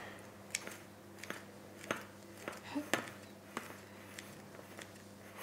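Kitchen scissors snipping risen brioche dough: a string of light, sharp clicks, about one every half second, as the blades close.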